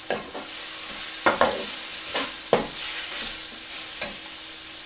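Chopped tomatoes frying in hot oil in a pan, sizzling steadily, while a metal slotted spoon stirs them and scrapes and knocks against the pan about six times.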